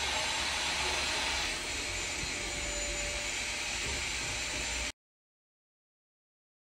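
Steady rushing, blower-like hiss that cuts off abruptly after about five seconds.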